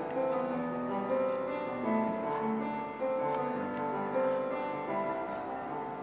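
Background music: a gentle piano melody with sustained notes changing at a steady pace.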